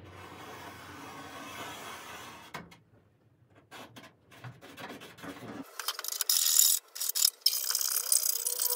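Thin steel repair panel being cut: fast rasping, ratchet-like metallic clicking, loud and high-pitched, starting a little over halfway through after fainter scratching and handling sounds.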